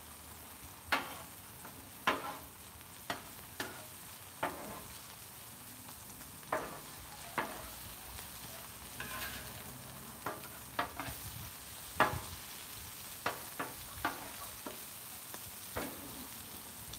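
Bell peppers and onions sizzling on a Blackstone flat-top griddle, with a steady faint hiss. Over it come about fifteen sharp, irregular clacks of a utensil working the food against the griddle plate.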